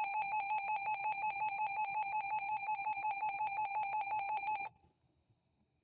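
RadioShack 12-250 weather radio sounding its alert beeper in test mode: a loud, high-pitched electronic tone pulsing rapidly, which cuts off suddenly near the end.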